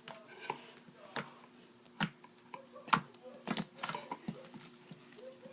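Slime being handled and squeezed, giving a series of sharp, irregular clicks and pops, with a quick cluster of them about three and a half seconds in.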